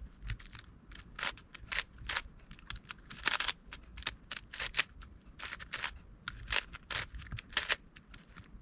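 8x8 Rubik's Cube being turned by hand, its plastic layers clicking and clacking in quick, irregular runs of several turns a second while the cross (the 'plus') is solved.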